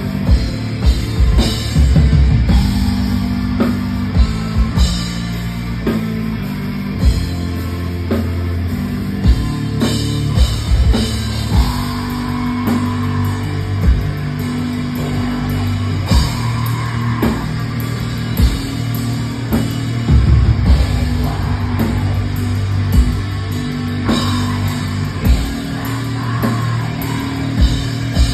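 Atmospheric black metal band playing live: distorted electric guitar chords over a drum kit with frequent sharp hits and cymbals.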